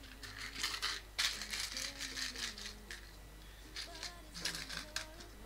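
Loose LEGO plastic pieces clattering and clicking as hands sort through and handle them, in several short bursts, the loudest about a second in.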